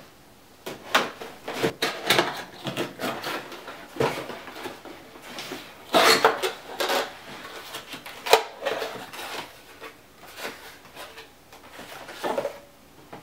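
A mailed package being opened by hand: irregular rustling, tearing and sharp clicks of packaging being pulled apart and its contents handled, with the loudest snaps about halfway through.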